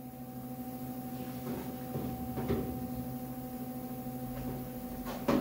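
Steady electrical hum with a few faint clicks, and a sharp knock near the end.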